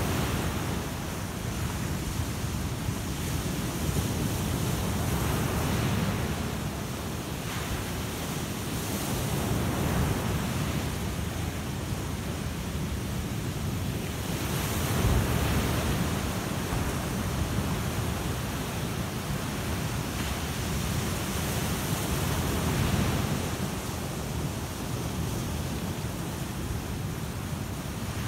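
Ocean surf breaking on a sandy beach: a continuous rush of water that swells every few seconds as each breaker comes in and washes up the shore, over a low rumble.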